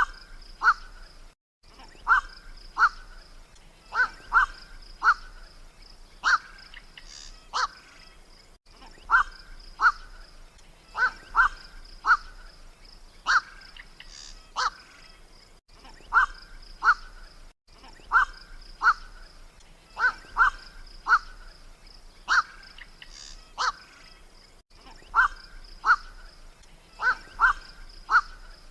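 Black-crowned night heron giving short, harsh 'kwak' calls, often two or three close together, repeated every second or two. A steady, high insect trill runs underneath.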